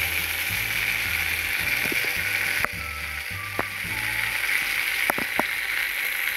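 Masala-stuffed eggplant halves sizzling in oil on a hot tawa: a steady frying hiss with a few light clicks.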